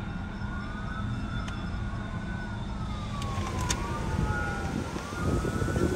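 Emergency vehicle siren wailing, its pitch sweeping slowly up and down again and again, over a steady low rumble that grows louder near the end.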